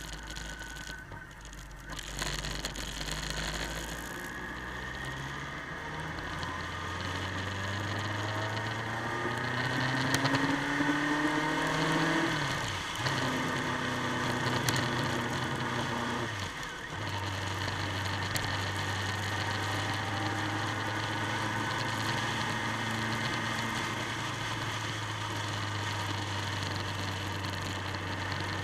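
Motorcycle engine accelerating out of a bend, its pitch rising steadily, then dropping sharply twice (about halfway through and a few seconds later) as it shifts up. It then holds a steady cruise, over a constant rush of wind noise.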